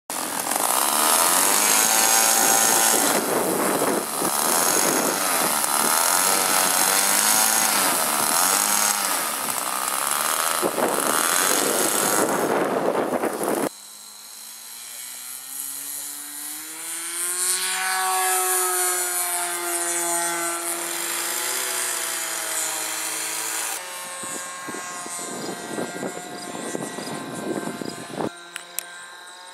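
Engine of a Twist 60 3D radio-controlled aerobatic model airplane running. It is loud and close for the first fourteen seconds, with a wavering pitch. After a sudden drop in level it sounds farther off, its pitch rising and then falling as the throttle changes.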